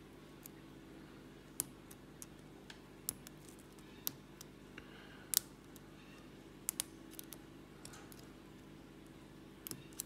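Faint, irregular small metallic clicks of a hook pick working the pin stack of a Lockwood 334 brass padlock held under light tension, a lock full of spool pins. A steady low hum runs underneath.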